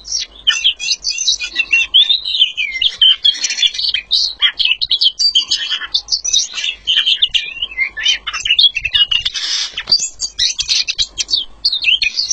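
A featherless songbird singing nonstop: a fast, unbroken stream of high chirps, trills and short whistled glides.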